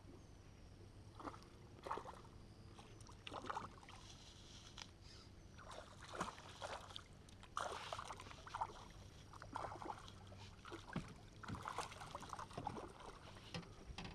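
Water splashing and lapping against a small boat in irregular short bursts.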